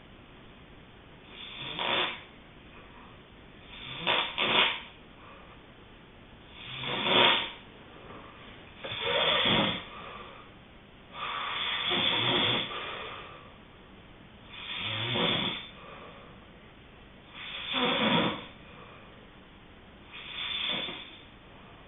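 Snoring in sleep: about eight snores, one every two to three seconds, in a steady rhythm.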